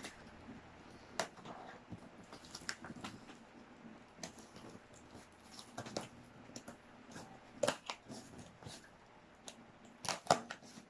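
Scattered rustles and sharp clicks of a parcel's packaging being handled and opened, a few louder snaps around six seconds in, near eight seconds and about ten seconds in.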